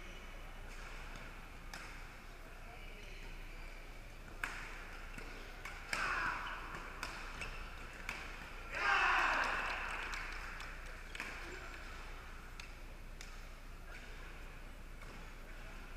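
Badminton rackets striking a shuttlecock in a doubles rally, a string of sharp cracks with gaps of a second or two, in a large hall. About nine seconds in comes a loud burst of shouting that slowly dies away.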